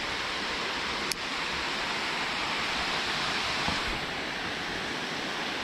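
Water pouring over a dam spillway: a steady rushing noise, with one short click about a second in.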